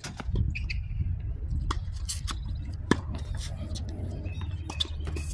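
Sharp pops of pickleball paddles hitting balls and balls bouncing on the hard court, a handful scattered over several seconds with the loudest about three seconds in, over a steady low rumble.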